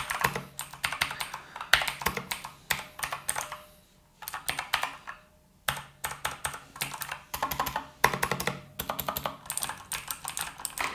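Typing on a mechanical keyboard with clicky blue switches (Gamepower Saber RGB): fast runs of sharp key clicks, with two short pauses near the middle.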